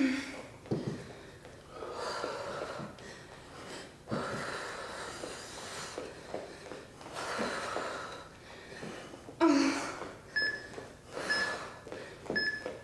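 Two people breathing hard through an exercise interval, with heavy breaths and exhalations every second or two. Near the end three short high beeps about a second apart: the workout's interval timer counting down the last seconds.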